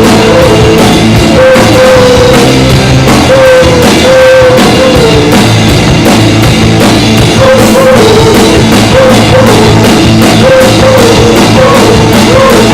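A live garage rock band playing loudly, with a drum kit keeping a steady beat on the cymbals under guitars and a wavering melodic line.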